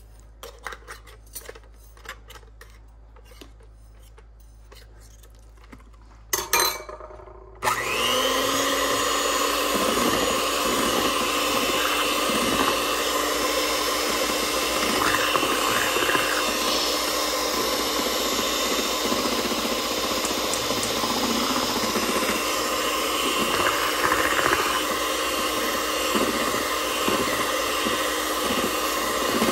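Light spoon taps in a plastic measuring jug of crepe batter, then a brief clatter. About eight seconds in, a Kitchen Gourmet electric hand mixer starts suddenly and runs steadily, its beaters whisking the thin batter.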